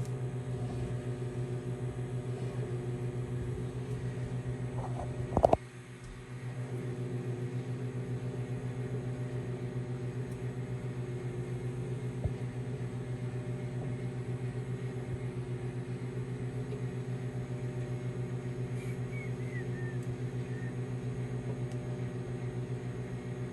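Hamilton Beach 1000-watt microwave oven running, a steady electrical hum while it heats food. A single sharp knock comes about five seconds in, and the hum dips for about a second before carrying on.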